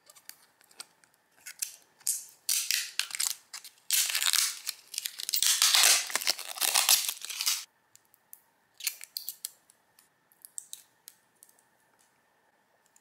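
Plastic packaging being torn open and crinkled by hand: a few short rustles, then about five seconds of dense crackling rustle, then scattered light clicks and rustles as it is set aside.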